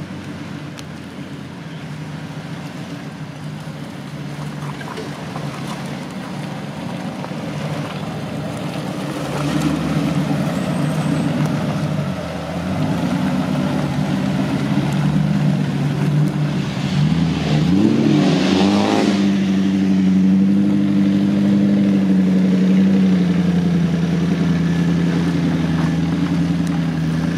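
Range Rover's 3.9-litre V8, with automatic gearbox, driving under load through mud and getting louder as it approaches. About eighteen seconds in it revs up in a quick rising sweep, then runs at a steady high note as it climbs.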